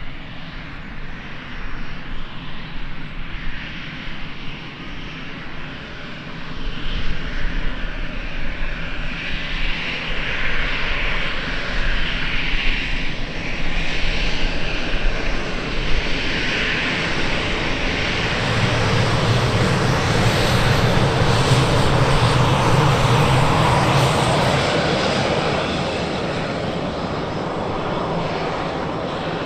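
Jet engines of an Airbus A320-family airliner running at low taxi thrust. The steady whine and rush grow louder through the middle as the aircraft passes close, then ease slightly near the end.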